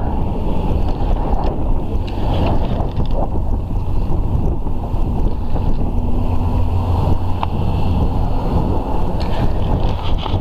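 Strong mistral wind buffeting the microphone: loud, steady wind noise.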